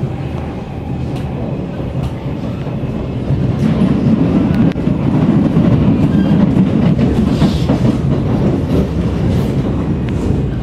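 Kawasaki C151 MRT train, fitted with permanent magnet synchronous motors, running along the track, heard from inside the car: a steady rumble with scattered wheel clicks over the rails, growing louder about three and a half seconds in.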